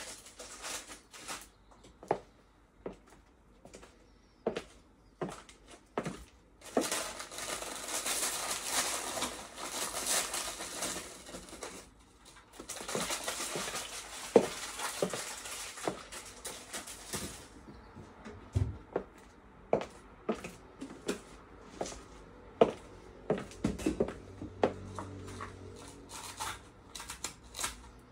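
Stiletto heels of Christian Louboutin Pigalle 120 patent pumps clicking on a wooden kitchen floor, mixed with the clatter of kitchen things being handled. A steady hiss runs for several seconds in the middle.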